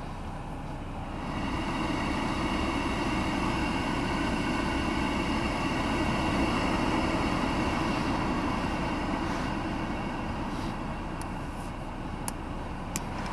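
Genesis G90's climate-control blower fan speeding up about a second in and blowing steadily with a faint whine, then easing down. A few sharp ticks come near the end.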